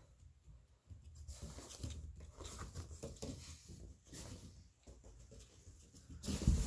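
Large flattened cardboard box being carried and handled, with irregular rustles, scrapes and soft knocks, and a louder thump near the end as it is lowered to the floor.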